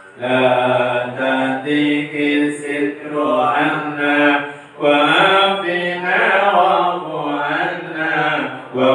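Melodic male chanting of an Arabic dhikr, with long held and gliding notes; the chant pauses briefly for breath just before five seconds in.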